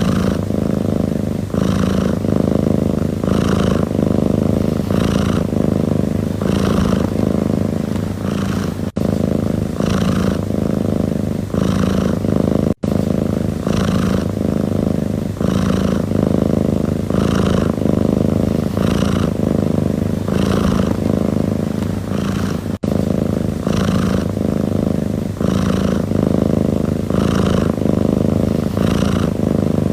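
A domestic cat purring steadily, a low continuous buzz that swells in an even rhythm about once a second.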